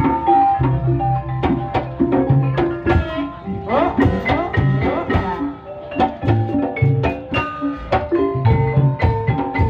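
Javanese gamelan playing live for an ebeg dance: bronze metallophones ring a melody of struck notes over drum strokes.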